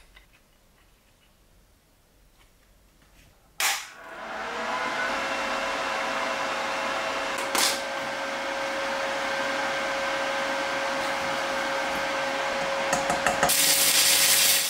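Stick (MMA) welding arc from a Topshak ZX7 250A inverter welder. The electrode strikes with a sharp crack a few seconds in, then the arc crackles and sizzles steadily with a thin steady tone through it. There is one louder pop partway through, and the arc grows louder near the end.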